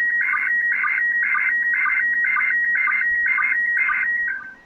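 Slow-scan television (SSTV) image signal from the International Space Station, received on 2-metre narrow FM and played through the radio software's audio: a steady high tone warbling in blocks that repeat about twice a second as the picture lines are sent. It drops away sharply about four seconds in as the receiver's audio gain is turned down.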